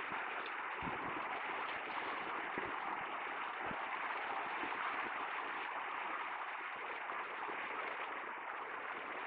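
Small waves breaking and washing steadily onto a flat sandy beach, with a few brief low thumps.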